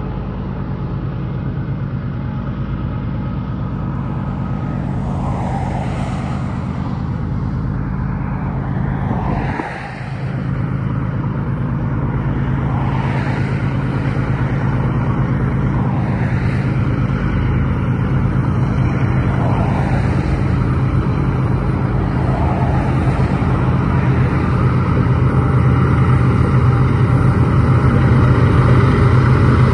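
Diesel locomotives of a BNSF stack train climbing to the summit, their engines making a steady low drone that grows gradually louder.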